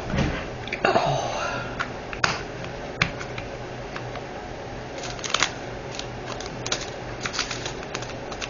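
Irregular light clicks and rustling of small plastic bags of diamond painting drills and their storage containers being handled, with a quick run of clicks in the second half.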